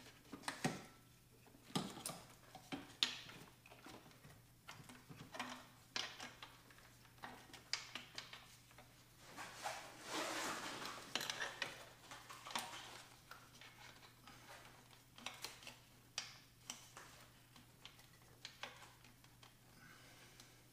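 Hands working parts into a crowded engine bay: scattered light clicks and knocks of plastic and metal parts, with a longer rustling scrape about ten seconds in. A faint steady low hum runs underneath.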